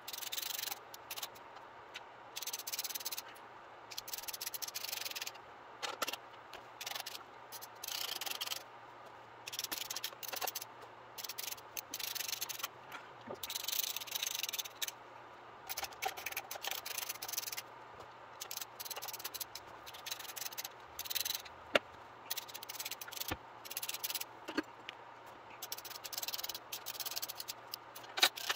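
Hand ratchet clicking in short repeated strokes, about one burst a second, as the fasteners of a newly RTV-sealed oil pan are run in by hand before torquing, with a couple of sharper clicks.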